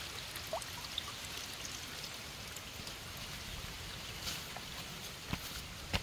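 Faint steady trickle of water, with a few light ticks and clicks.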